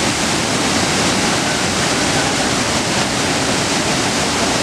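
Waterfall: water pouring and splashing over boulders in a steady, loud rush with no let-up.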